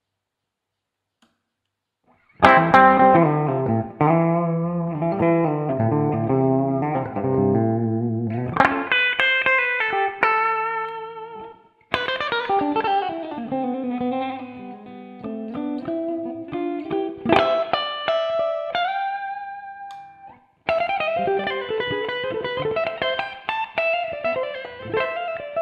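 Electric guitar with humbucker pickups played solo: a lead melody of ringing single notes, some sliding in pitch. It starts a couple of seconds in and comes in three phrases with short breaks between them.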